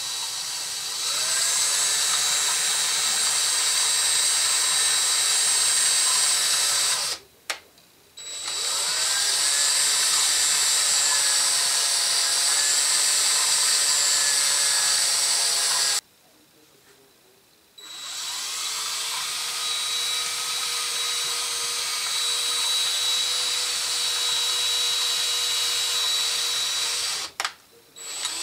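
Small electric drill turning the pinion of a three-jaw scroll chuck, driving the jaws in and out through the scroll. The motor whine rises and falls in pitch as it runs and stops three times: about seven seconds in, for about two seconds near the middle, and near the end.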